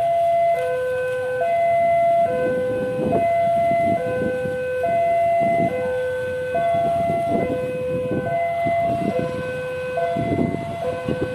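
Railway level-crossing warning alarm sounding a steady two-tone hi-lo signal, switching between a higher and a lower tone a little under once a second, to warn that a train is approaching. A low rumble of engines lies underneath and grows louder near the end.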